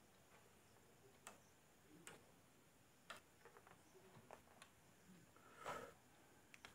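Near silence with a few faint, irregular ticks and knocks and one short soft rub a little before the end, from a whiteboard being wiped with a hand-held duster.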